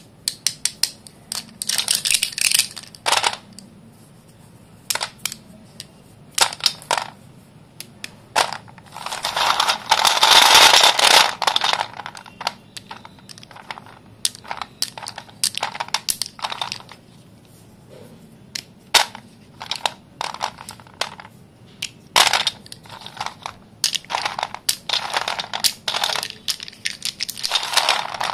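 White dustless school chalk being crushed and crumbled, a run of sharp snaps and crackles with several longer stretches of dense crunching, the longest about ten seconds in.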